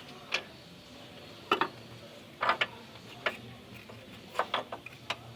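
Sharp clicks and knocks of hand tools on metal, irregularly spaced and some in quick pairs, during work on a car's engine mount.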